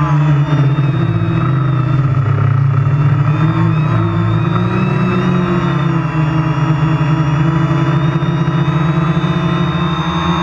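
Quadcopter's electric motors and propellers buzzing steadily, heard from the GoPro mounted on the drone. Several whining tones drift up and down a little as it flies.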